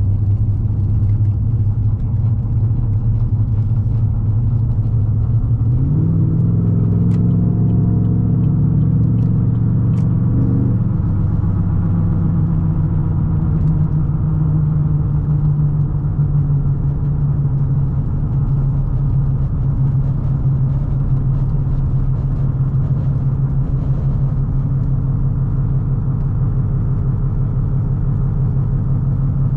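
2016 Chevrolet Silverado 2500HD's 6.0-litre Vortec V8 running through an aftermarket exhaust while the truck is driven. The note is steady, then about six seconds in the engine pulls harder and its pitch climbs for a few seconds, before easing back around eleven seconds in to a steady cruising drone.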